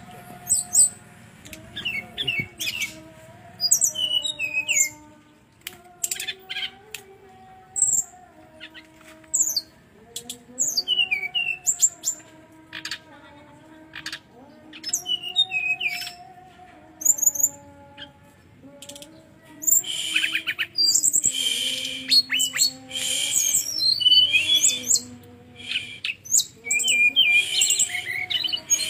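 Brown-chested jungle flycatcher song: short, sharp high chirps and quick twittering phrases in clusters, becoming denser and louder about two-thirds of the way through. Underneath runs a low tone that steps slowly up and down.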